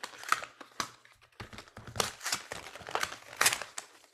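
Paperboard packaging crinkling and rustling in irregular crackles as a headset box is pulled open by hand.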